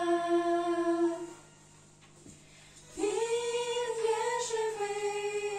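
Three young women singing a Ukrainian hymn together without accompaniment: a long held note ends about a second in, then after a pause of about a second and a half a new phrase begins on a rising note and is held.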